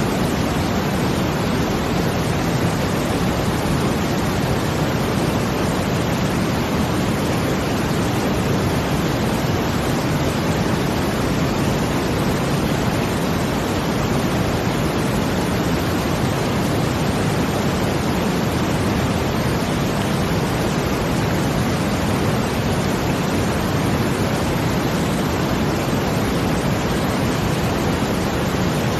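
Steady brown noise blended with the rush of water: a dense, even, deep hiss that holds at one level, with no swells or breaks.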